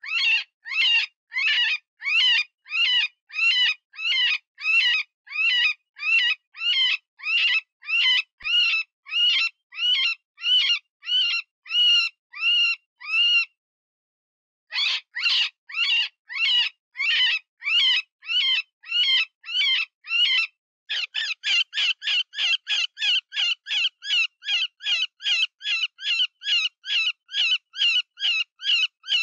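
Cottontail rabbit distress call, the wounded-rabbit sound used to lure predators: high cries that rise and fall in pitch, repeated about twice a second. After a short pause about halfway through they come again, then faster, about three a second, for the last third.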